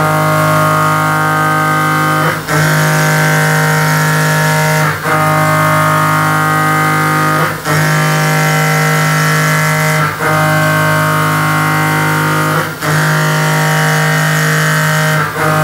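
CNC milling machine's end mill cutting a metal block: a loud, steady whine of several fixed pitches that drops out briefly about every two and a half seconds.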